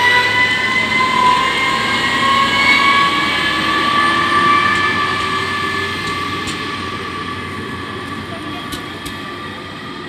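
Diesel passenger train passing over a road level crossing. Its drivetrain gives a steady whine that rises slowly in pitch over the running noise, then fades as the train moves away, with a few faint clicks later on.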